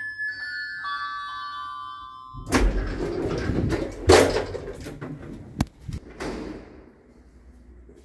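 A passenger lift plays an electronic arrival melody, a run of chime-like tones stepping down in pitch, which stops about two and a half seconds in. Then the doors open and the swing landing door is pushed open with a loud thunk about four seconds in, followed by two sharper clicks of the door and its latch.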